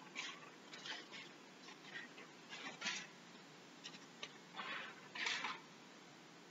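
Faint rustling and shuffling: a paper service sheet handled and opened and a person moving into place, in short scattered rustles, the loudest about five seconds in.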